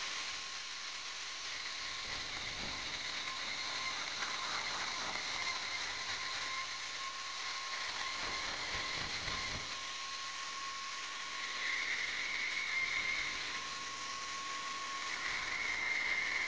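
Portable band saw running with a steady whine and hiss as its blade cuts a brass bar. A higher tone in the whine swells twice in the second half.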